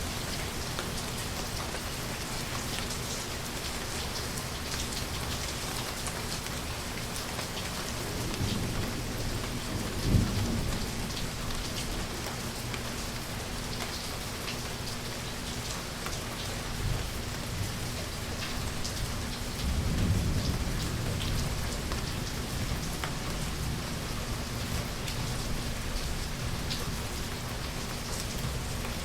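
Steady rain falling, with thunder rumbling twice: once about a third of the way in, with a sharp crack at its peak, and again about two-thirds of the way in.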